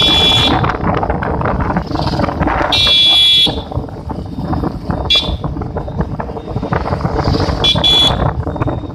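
Wind buffeting the microphone and road noise of a moving motorcycle, cut by short, high-pitched electric horn honks: one at the start, a longer one about three seconds in, a brief one about five seconds in, and a quick double near the end.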